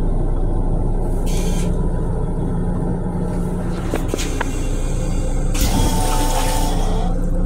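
Stainless-steel toilet bowl in a Metro-North M7 railcar restroom flushing: a hiss of rinse water spraying into the bowl for about a second and a half near the end, with a faint whistling tone, and a shorter hiss about a second in. The railcar's steady low rumble runs underneath.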